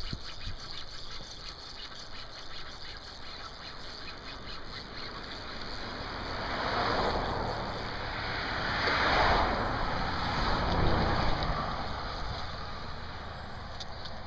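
Water splashing and swishing as a hooked fish thrashes in the weedy shallows while being pulled in, swelling twice in the second half.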